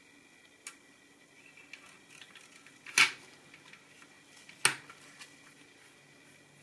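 Small plastic gauge-needle caps being pressed and clipped onto the needles of a car instrument cluster: two sharp plastic clicks about a second and a half apart, with a few faint ticks around them.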